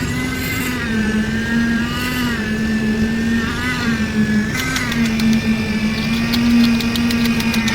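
An engine running steadily at a constant pitch, with a fast clattering rattle joining in about halfway through.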